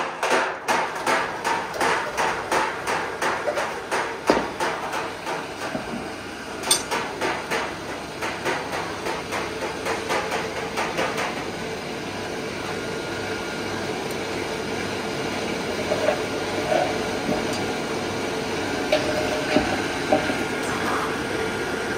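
A quick, even run of sharp knocks, about three a second, fading away through the first half. Beneath and after it, the steady hum of the tinner's coal forge blower.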